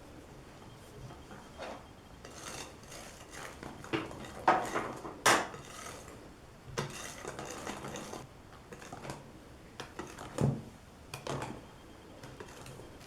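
Kitchen utensils and a mixing bowl clinking and knocking, with a few short rustling stretches, as baking powder is added to the cake's flour mixture. The sharpest clinks come about four and five seconds in.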